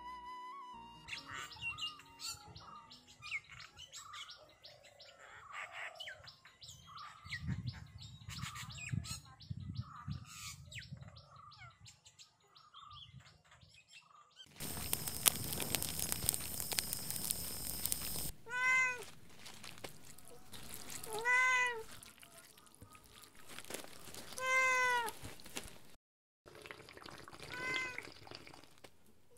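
Domestic cat meowing four times, a few seconds apart, each call rising and falling in pitch. Before the meows, faint bird chirps are followed by about four seconds of loud rushing noise.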